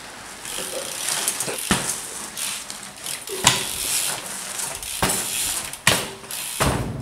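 BMX bike ridden on a concrete floor: tyres rolling and the rear hub's freewheel ratchet clicking, with several sharp knocks as the wheels and frame hit the concrete.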